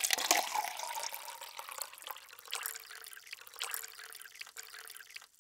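Logo-reveal sound effect: a crackling hiss full of small clicks over a faint steady tone, loudest in the first second, then weaker with a few swells before it cuts off at the end.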